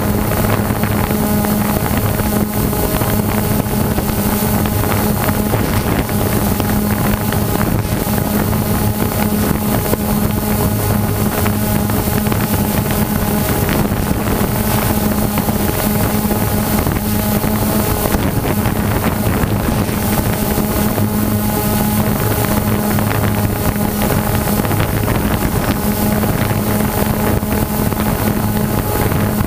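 Small radio-controlled car engine running at a steady pitch, with wind buffeting the microphone.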